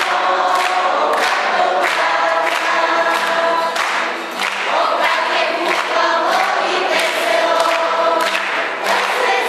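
A choir singing a hymn, the voices holding long notes.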